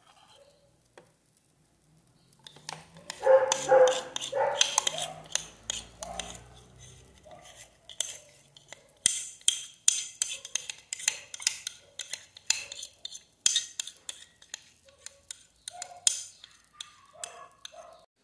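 A metal fork and spoon clinking and scraping against a glass mixing bowl while batter is scraped out, making many quick light clicks. A few short, louder pitched sounds stand out about three to five seconds in.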